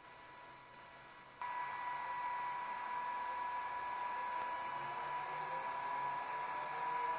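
Electric motor turning a large decorative propeller-like frame of metal arms, run from a push-button speed controller: a steady electrical whine and hiss, with a faint whine rising in pitch in the second half as it speeds up.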